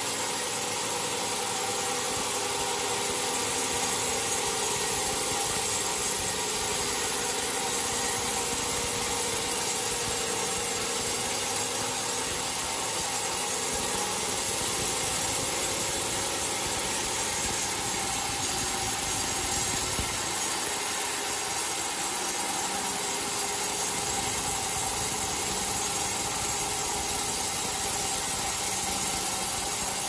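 Sawmill band saw cutting lengthwise through a coconut log, the blade and its drive running with a steady, even noise and a few held tones.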